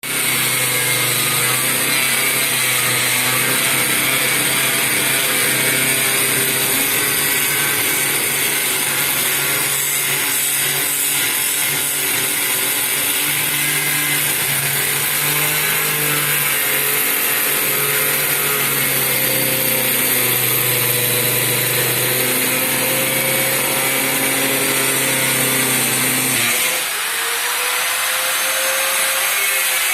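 Circular saw running and cutting through wardrobe board, a loud steady whine with a high hiss. Near the end the sound changes and the tone glides up and down as the load on the blade changes.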